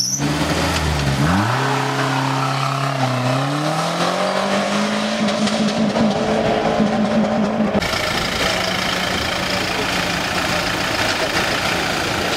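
Off-road rally jeep pulling away from the start: its engine revs climb steeply, dip briefly at a gear change about three seconds in, then climb again as it drives off. About two-thirds of the way through, the sound changes abruptly to a steadier engine hum.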